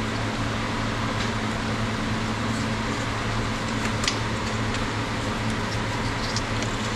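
Steady machine hum with a low mains-like drone over a broad hiss. Over it come a few small sharp clicks and ticks as hands handle the wire and connector of the mower's PTO clutch lead, the sharpest about four seconds in.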